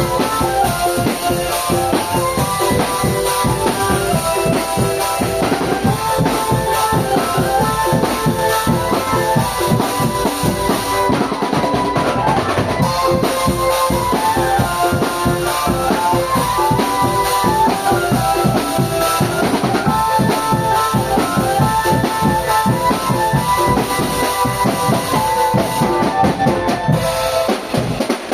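Marching drum band playing: a stepping melody over steady snare and bass drum beats. The drumming thins out briefly near the end.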